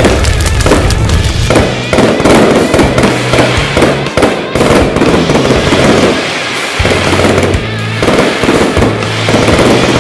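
Fireworks going off in a dense run of crackles and pops, over background music with a steady low bass line.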